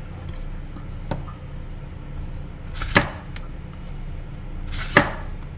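Knife slicing through a zucchini and chopping down onto a plastic cutting board: two sharp chops about two seconds apart, with a fainter knock about a second in.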